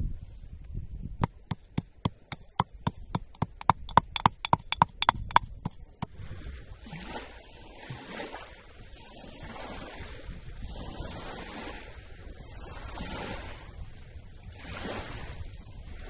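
A quick run of sharp, ringing clicks that speeds up over about five seconds, then small waves lapping at a lake shore, rising and falling gently.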